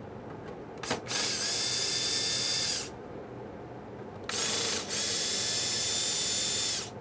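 Power drill spinning in two runs, backing out the sheet-metal screws of a welder's cover: a click, then a steady whine of almost two seconds, and after a pause a longer run of about two and a half seconds with a brief hitch near its start.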